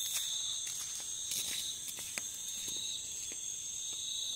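Steady insect chorus, two high shrill tones held without a break, with a few soft scattered taps and knocks.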